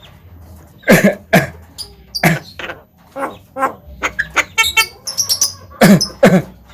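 Javan myna giving short, harsh calls one after another, with a quick run of clicking chatter in the middle and two louder calls near the end.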